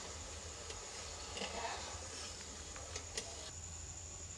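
A few light clicks of a ladle knocking against an aluminium pan while froth is skimmed off simmering mango sugar syrup, over a steady low hum.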